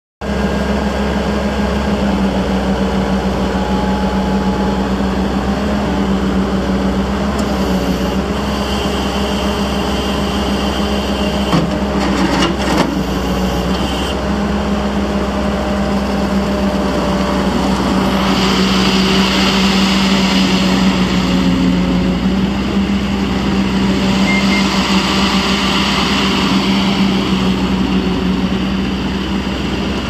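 ASV PT-70 compact track loader's diesel engine running steadily with a constant hum. A few clicks come about two fifths of the way in, and just past the middle a brighter hiss joins the engine sound and stays for most of the rest.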